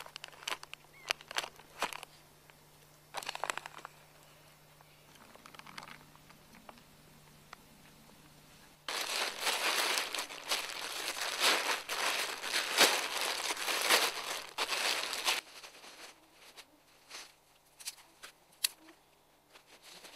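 Green plastic tarp crinkling and rustling as it is gripped and pulled, loudest for about six seconds in the middle, with scattered shorter crackles and rustles before and after.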